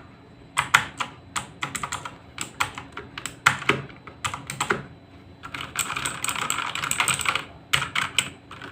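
Keys of an Ant Esports MK3400V2 mechanical keyboard being pressed: irregular clacking keystrokes, with a fast run of typing lasting almost two seconds past the middle.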